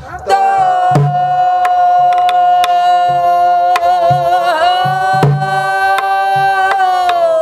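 Woman singing pansori, holding one long note that lifts slightly about halfway and slides down near the end, to her own buk barrel drum: sharp stick knocks on the drum and low thumps under the voice.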